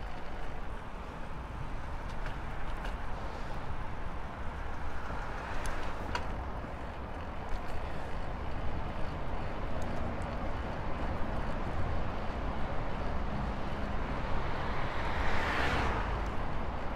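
Steady wind and rolling road noise from riding a bicycle, with a low rumble throughout. A louder rushing sound swells and fades near the end.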